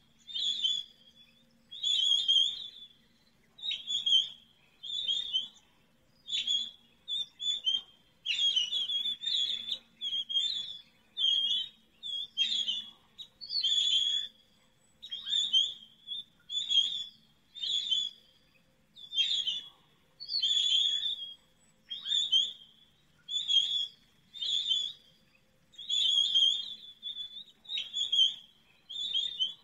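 Pine grosbeak calls: short, clear whistled phrases repeated roughly once a second, loud and close.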